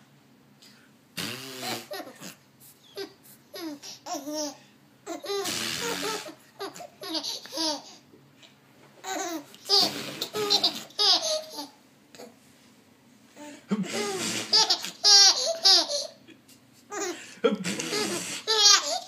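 A baby laughing in repeated bouts of high giggles with short pauses between, as it is nuzzled by an adult. The bouts start about a second in and grow louder towards the end.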